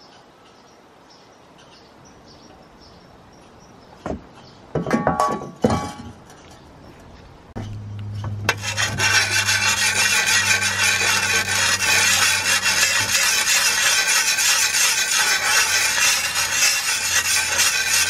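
Lansky medium-grit sharpening stone rubbed by hand over the steel edge of a rusty shovel: a loud, steady, rough scraping as the stone grinds off metal and rust to sharpen the edge. It starts about halfway through, after a few knocks as the stone is set against the blade.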